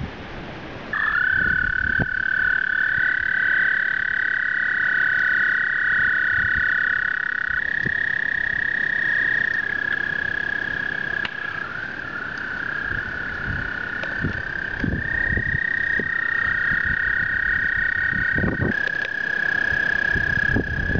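Male American toads trilling in a breeding chorus: long, steady, high musical trills that start about a second in, with two or three toads at slightly different pitches overlapping. These are the males' spring mating calls at the breeding pond.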